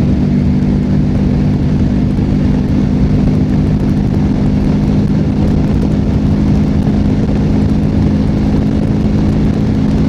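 Benelli TRK 702 X's parallel-twin engine running at a steady, even speed while riding, with wind rushing over the microphone.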